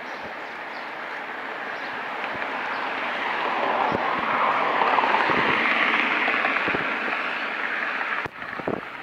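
A passing train: a steady rumbling rush that grows to its loudest in the middle and drops away suddenly near the end.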